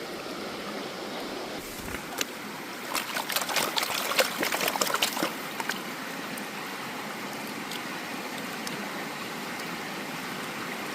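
Stream water running steadily, with a few seconds of splashing and gritty clicking from a gold pan being worked in the water, starting about two seconds in.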